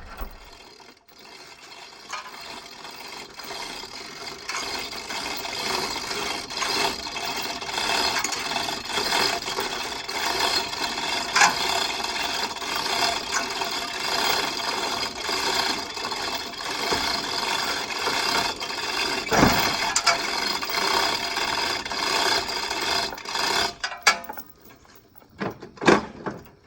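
A hand-pulled chain hoist lifting a lawn mower: the chain rattles and clicks steadily through the hoist for over twenty seconds, then stops, followed by a few knocks.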